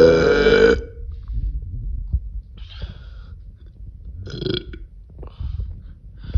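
A young woman's deliberate burps: one loud, drawn-out burp lasting most of a second at the start, then a couple of shorter, quieter burps near the middle.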